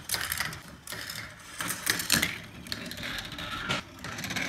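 Steel marbles rolling through a Gravitrax marble run, along its metal rails and plastic track pieces, with a quick run of clicks and rattles.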